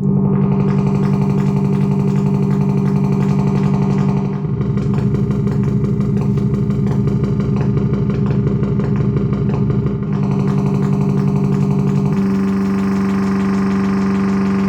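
Behringer MS-5 analogue synthesizer sounding a motorcycle-engine idle imitation, built from two narrow pulse waves through the ring modulator and band-pass filter. It starts abruptly and holds steady, and its tone shifts around four, ten and twelve seconds in.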